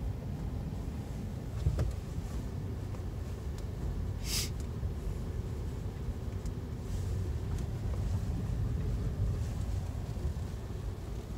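Steady low rumble of a Honda Element's four-cylinder engine and its tyres on a snow-covered road, heard inside the cabin while driving slowly. There is a low thump a little under two seconds in and a short hiss about four seconds in.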